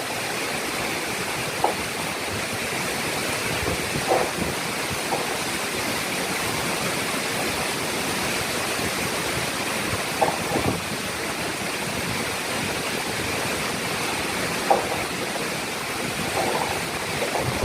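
Steady rushing noise of storm-whipped sea surf and strong wind at a beach during high tide, with a few short louder spikes now and then.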